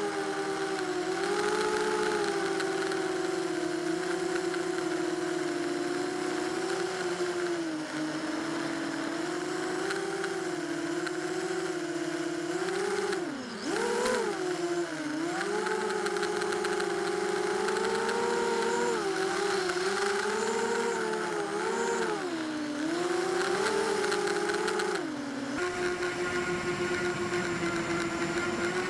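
Small quadcopter's electric motors and propellers whining, the pitch wavering up and down with the throttle, with a sudden dip and swoop about halfway through. Near the end the whine settles to one steady pitch.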